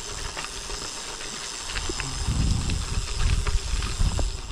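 Wind buffeting the microphone, a gusty low rumble and hiss that grows stronger about two seconds in.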